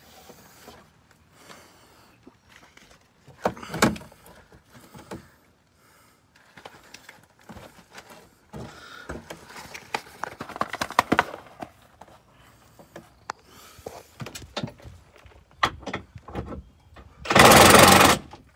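Scattered knocks and clatter of work under a truck, then near the end a loud burst of about a second from a 24-volt cordless impact wrench running on a step-bar mounting bolt.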